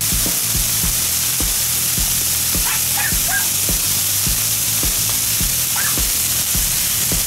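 Hamburger patties sizzling on an oiled Blackstone flat-top griddle. The loud, steady sizzle starts suddenly at the beginning.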